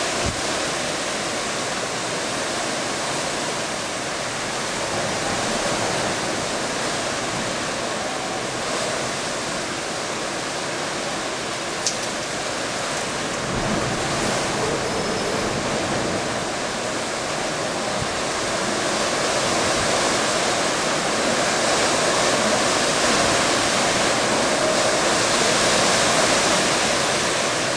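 Typhoon wind blowing at storm strength: a steady rushing noise that swells louder over the last several seconds.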